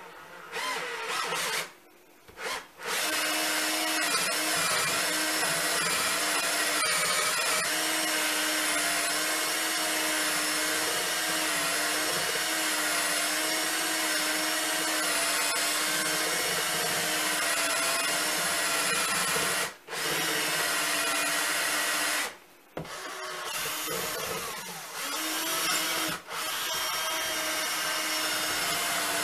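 An electric power tool's motor running in long stretches, its pitch wavering as the load changes. It starts with two short bursts and then runs on, with brief stops about three times.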